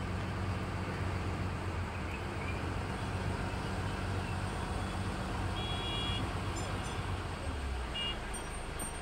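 Low, steady hum of a river launch's diesel engine running at idle, over a general outdoor haze. The engine note dips lower for a moment near the end, and two brief faint high tones sound about six and eight seconds in.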